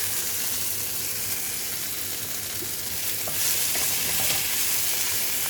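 Bitter gourd (karela) pieces sizzling as they roast in a pan, mildly charred. The sizzle gets a little louder about three seconds in, with a few faint clicks near the end.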